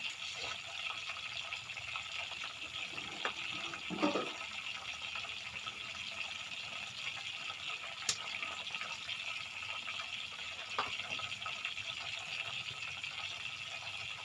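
Tofu frying in hot oil, sizzling steadily, with a few small pops.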